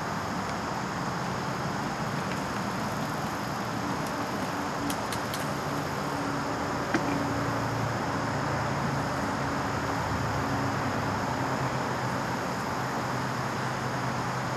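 Steady road-traffic noise: a constant hiss with a low hum that comes and goes, and one faint click about seven seconds in.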